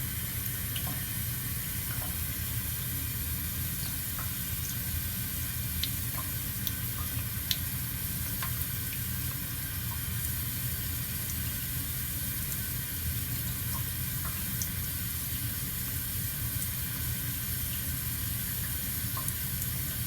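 Straight razor being honed on a wet Naniwa Superstone 12K water stone: a steady faint hiss with scattered light clicks of the blade on the stone.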